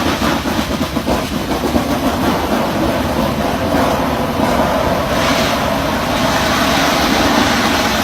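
Drilling rig machinery running with a loud, steady mechanical din, with a few knocks in the first couple of seconds and a hissing surge about five seconds in.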